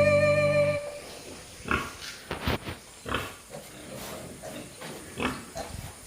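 Background music cuts off about a second in, followed by pigs giving several short, irregular grunts.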